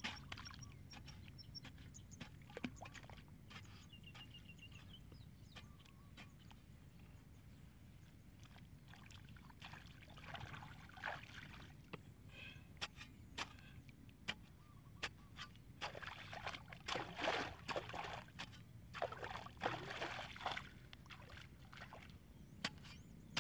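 Long metal digging bar with a flat blade chopping into wet soil, with sharp knocks of the blade and bursts of muddy water sloshing and splashing, loudest in the last few seconds.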